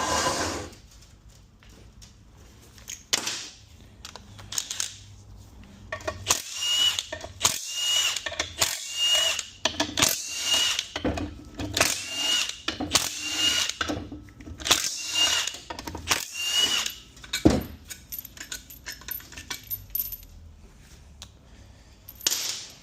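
Tools working on the metal parts of a Ford 6F35 transmission being torn down: a run of about a dozen short bursts, roughly one a second, each with a brief high squeak, then a single sharp metal knock.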